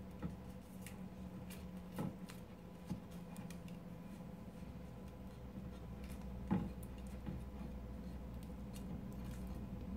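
Faint handling of glued comic-strip paper being pressed and folded onto a picture frame, with a few light knocks, the loudest about six and a half seconds in, over a steady low hum.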